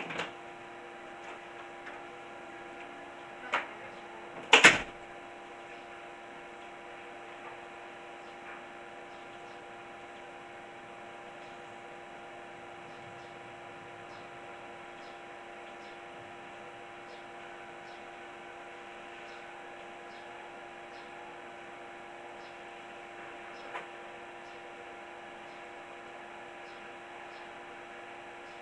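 A steady electrical hum made of several even tones. About three and a half seconds in there is a short knock, and a second later a louder thump.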